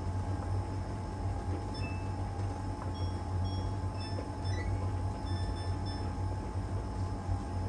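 LG heat pump tumble dryer running steadily mid-cycle, its drum turning in one direction, with a strong low hum and a steady higher whine. A few faint, brief high-pitched tones come and go around the middle.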